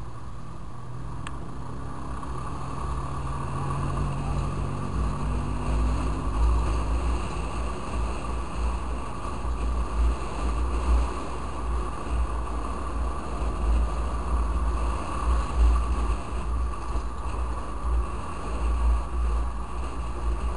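Yamaha Fazer 250 single-cylinder motorcycle riding in traffic, its engine note rising slowly over the first few seconds as it speeds up. Wind buffets the microphone, getting louder from about four seconds in.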